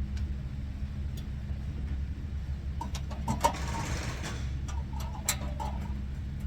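Steady low hum of an idling engine, with a few sharp metallic clinks of a wrench working on metal, the loudest about three and a half seconds in and another near five seconds.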